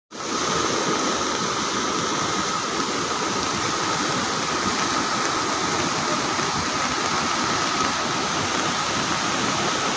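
Muddy floodwater of a swollen river rushing past in a steady, loud torrent, with a thin steady tone above it.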